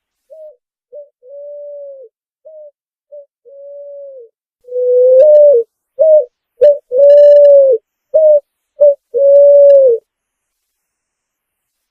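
Picazuro pigeon (pomba asa-branca) cooing: a faint phrase of short and drawn-out low coos, then about five seconds in a much louder phrase of the same coos, which ends about ten seconds in.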